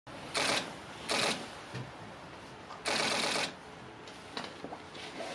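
Camera shutters firing in rapid bursts of continuous shooting: three bursts of fast clicking, the longest about three seconds in, then a few single clicks, over a steady light hiss of rain.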